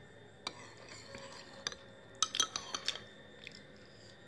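A spoon clinking against the dish of sekoteng as it is scooped and eaten: a single click about half a second in, then a quick run of bright clinks about two seconds in, with some chewing.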